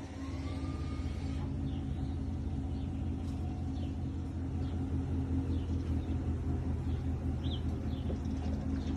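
A vehicle engine running with a steady low rumble. A few faint short high chirps sound above it.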